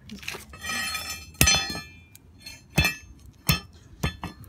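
Pieces of a smashed plastic tail light clinking and knocking on concrete: a ringing jingle of small pieces for about a second and a half, then four sharp knocks, the loudest about a second and a half in.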